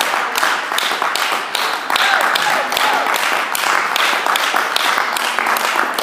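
Spectators clapping fast and continuously, with some voices shouting among the claps.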